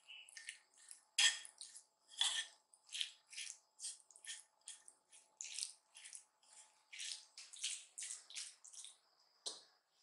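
Wooden spoon stirring a tuna, mayonnaise and chopped egg mixture in a bowl: a run of short, wet stirring strokes, about three a second.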